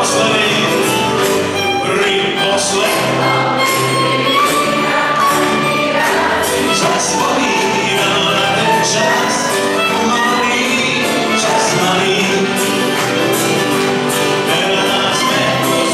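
Live band music with a man singing lead over acoustic guitar, violin, cimbalom, double bass and keyboard, with a steady beat.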